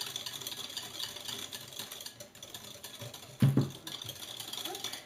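A utensil beating batter by hand in a glass bowl: rapid, steady clicking and tapping against the glass as eggs, sugar, sour cream and melted butter are mixed. A dull thump about three and a half seconds in.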